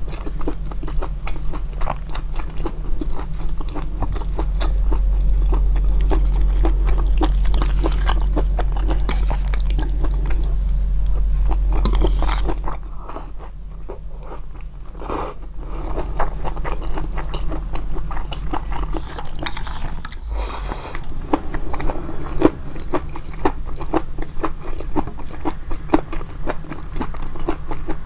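Close-miked chewing of japchae glass noodles: a steady run of wet mouth clicks and bites, softer for a while about halfway through, with a low hum under the first part.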